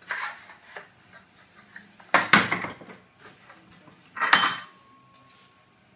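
Sheet-steel trunking and a wooden block being handled and set down on a workbench: knocks and clatter, two heavier knocks about two seconds in, and a sharp metallic clang about four seconds in that rings briefly.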